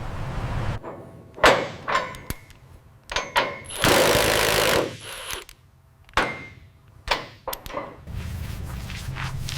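Work noises: a series of sharp knocks and clicks, with a harsh noisy burst lasting about a second near the middle.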